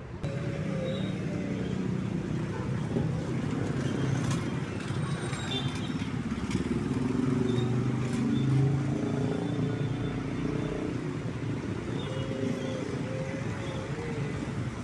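Street traffic: motor vehicle engines running and passing, a steady rumble that grows louder for a moment about eight seconds in.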